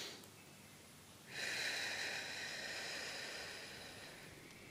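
A person slowly breathing out in a deep breath: one long breathy exhale that starts about a second in and fades away over about three seconds.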